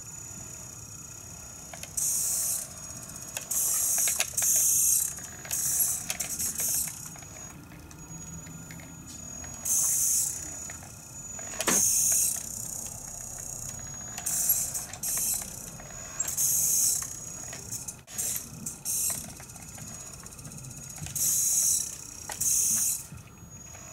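Small electric drive motor and gearing of a Siku Control radio-controlled tipper semi-truck whirring in about ten short bursts as the truck is inched back and forth. A single sharp click comes about halfway through.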